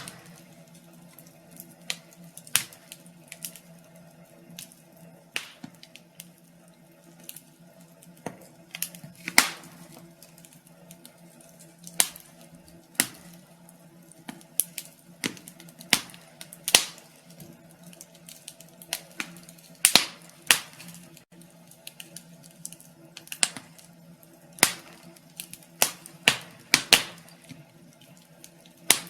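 Wood fire crackling: irregular sharp pops and snaps at uneven intervals, a few of them loud, over a faint steady hum.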